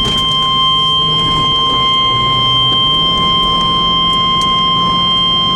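NOAA Weather Radio warning alarm tone, a steady single-pitch beep held unbroken and cutting off suddenly near the end, over the low hum of the moving vehicle. It signals the tornado warning broadcast that follows.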